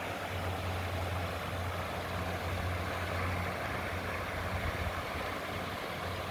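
Steady rush of flowing river water, with a low steady hum underneath it.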